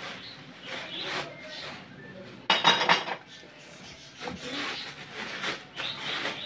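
Newspaper rustling and crumpling as paper-wrapped ceramic dishes are lifted out of a cardboard box, with the dishes clinking. A loud burst of rustling and clinking lasts about half a second, about two and a half seconds in.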